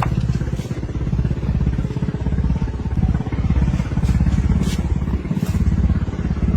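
An engine running steadily, a low rumble with rapid even pulsing.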